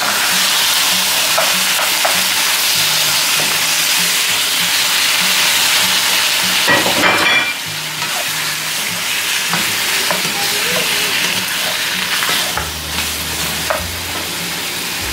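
Raw pork rib pieces sizzling in hot oil in a nonstick wok as they start to brown, with the odd scrape and knock of the utensil turning them, the loudest about seven seconds in.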